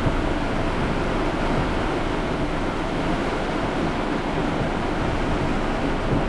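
Heavy rain pouring down in a steady, unbroken hiss, a downpour that has just begun.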